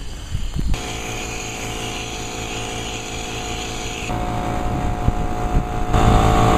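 Power buffer polishing a plastic headlight lens: the motor starts about a second in and runs with a steady hum, changing in sound and getting louder twice, the second time near the end.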